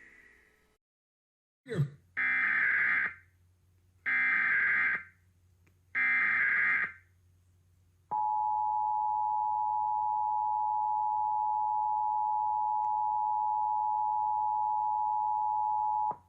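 Emergency Alert System Required Monthly Test tones: after a click, three one-second bursts of SAME header data tones about two seconds apart. These are followed by the steady two-tone EAS attention signal (853 and 960 Hz), held for about eight seconds before cutting off.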